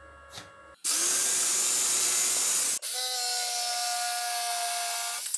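Electric jigsaw cutting through an 18 mm pine board, starting about a second in. The sound breaks off abruptly near the middle and resumes at once, now with a steady motor whine over the cutting noise.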